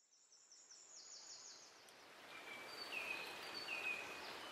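Outdoor field ambience fading in from silence: a soft, even hiss with birds singing over it, first a fast high trill, then short chirps repeating from about two seconds in.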